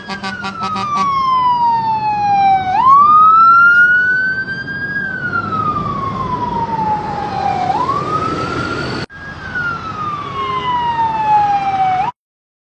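Emergency vehicle siren wailing, its pitch sliding slowly down and then sweeping back up, about every five seconds. It drops out for a moment about nine seconds in and stops abruptly near the end.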